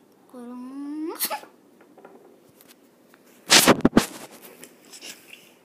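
A girl's wordless voice rising in pitch for about a second. Then, about three and a half seconds in, a cluster of loud breathy, rustling bursts right at the microphone.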